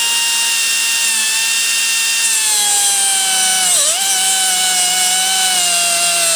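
Pneumatic cut-off tool with an abrasive cutting wheel whining as it cuts through a steel rod. The pitch sinks slowly as the wheel is loaded, with a brief sharp dip about four seconds in.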